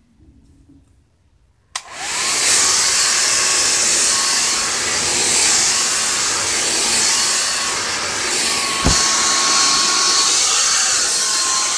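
Handheld blow-dryer straightener switched on with a click about two seconds in, then blowing steadily with a thin whine. There is a single knock about nine seconds in.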